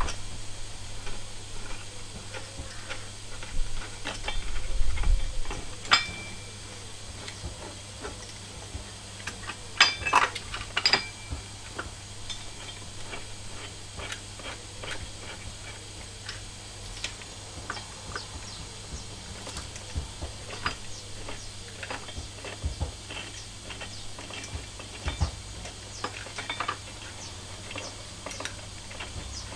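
Intermittent small metallic clicks and clinks of tools and bolts being worked by hand on a steel engine-stand mounting bracket, with a louder cluster of clinks about ten seconds in. A steady low hum runs underneath.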